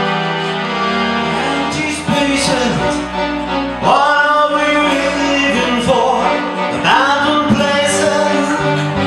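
Live stage music: a band holds sustained chords, then a man starts singing into a microphone about four seconds in.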